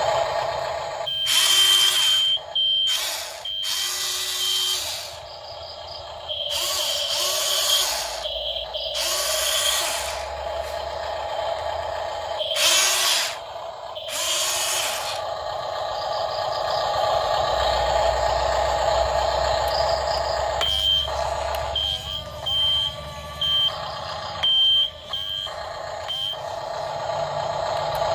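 Double E E568-001 Volvo RC excavator working under remote control: its electric motors whir in stretches of a few seconds as the boom and bucket move. Two runs of short, repeated high beeps sound over a steady hum, one near the start and one about twenty seconds in.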